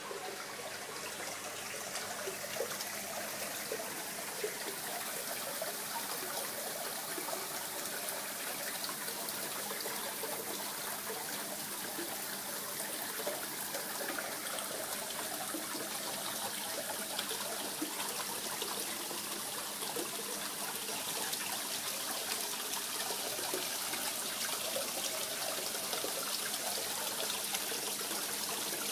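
Water trickling and splashing steadily into a garden koi pond from a small waterfall.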